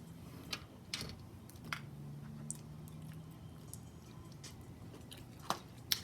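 Quiet close-up eating sounds of someone chewing fried chicken: scattered soft mouth clicks and smacks, with a low closed-mouth hum of enjoyment from about two to three and a half seconds in.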